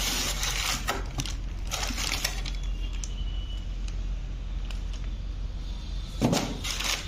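Clear plastic accessory bags crinkling and polystyrene foam packing rubbing and creaking as bagged TV parts are lifted out by hand. It comes in bursts of rustling: right at the start, again around two seconds in, and a louder, fuller rustle near the end.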